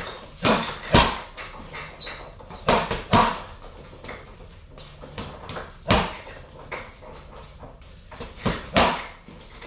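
Boxing gloves punching a hanging Everlast heavy bag: sharp thuds in short combinations, about eight in all, some landing in quick pairs.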